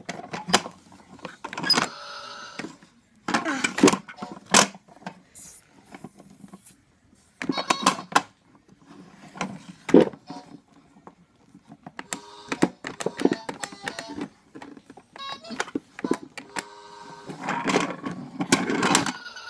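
Little Tikes plastic toy cars pushed by hand along a hard plastic raceway, clattering, with scattered knocks and a few short spells of fast rattling.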